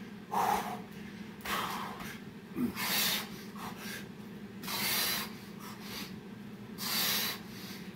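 A man breathing hard from exertion, with loud, forceful breaths about every one to two seconds.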